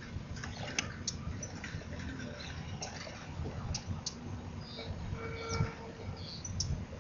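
Wetland ambience: scattered short high chips and clicks from small birds over a low rumble, with a brief pitched call about five seconds in.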